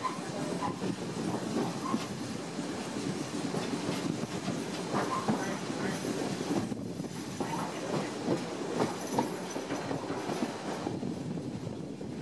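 Heritage passenger carriage rolling along the track, its wheels clattering irregularly over the rails with a steady running rumble, heard from the carriage window.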